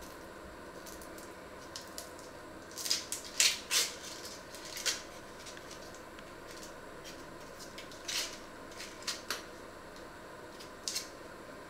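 Dry onion skins crackling and rustling as they are peeled off with a small knife, in short scattered bursts, the loudest cluster about three seconds in.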